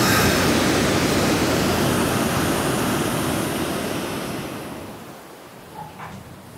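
Ocean surf breaking on a sandy beach, a steady rushing wash that fades away about five seconds in.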